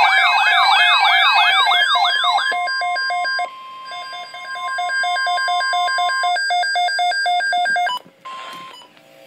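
Emergency-alert siren tones: an electronic siren sweeps rapidly up and down, then gives way to a fast pulsing alarm beep of about four beeps a second over a steady tone. A brief burst of static comes near the end.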